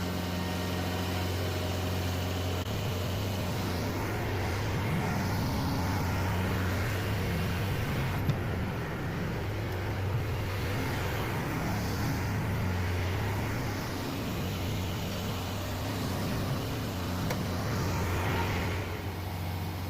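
Tractor engine running steadily under load while the tractor pushes a heavy log. There is a constant low hum, with rougher working noise over it from a few seconds in.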